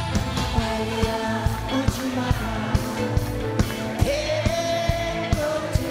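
Live trot song: a male vocalist sings over a band with a steady drum beat and guitar, holding one long note through the last couple of seconds.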